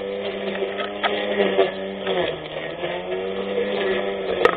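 24V brushless electric lawn mower motor running with a steady whine, its pitch dipping briefly twice as it bites into the grass. Sharp clicks of cut grass or debris striking the mower, with two strong ones near the end.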